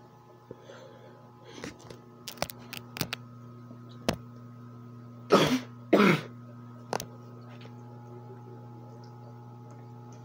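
Two coughs in quick succession about halfway through, over a steady low hum from the aquarium equipment, with a few light clicks and taps before them.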